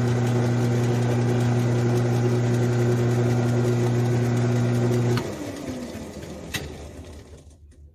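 Grizzly G9972Z metal lathe running with a steady motor and gear hum. About five seconds in it is switched off and spins down, its pitch falling as it coasts to a stop, with a single click partway through the run-down.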